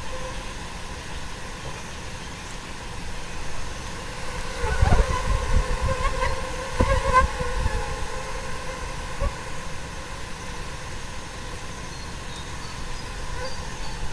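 A swarm of fruit flies buzzing, a steady hum of many tiny wings beating together. Twice, about five and seven seconds in, it grows louder with low thumps on the microphone.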